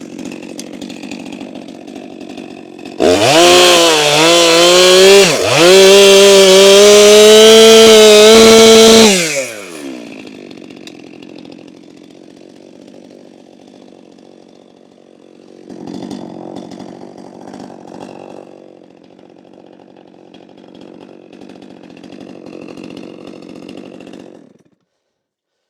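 Stihl MS 462 two-stroke chainsaw idling, then suddenly revved to full throttle. Its pitch dips sharply twice before it is held high for about three and a half seconds, then it winds back down to idle. It idles unevenly, with a couple of small swells, and cuts off suddenly near the end.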